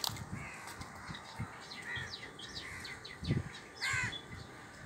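Birds calling: a run of short chirps, with one louder call about four seconds in.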